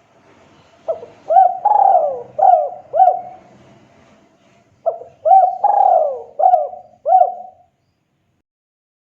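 Spotted dove (tekukur) cooing: two song phrases about four seconds apart, each a run of short hooked coos with one longer falling coo in the middle.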